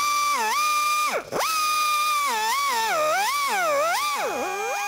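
Die grinder with an abrasive cartridge roll whining at high speed as it grinds out the port of a cast-iron cylinder head. Its pitch dips again and again as the roll bites into the metal and slows under load, then climbs back. It cuts out briefly about a second in and spins back up.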